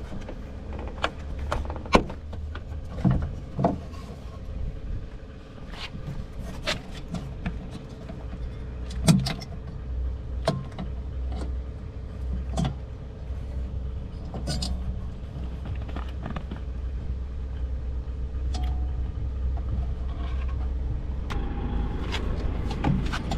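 Scattered light clicks and knocks of small plastic and metal lamp parts and screws being handled during a bulb replacement, over a steady low hum.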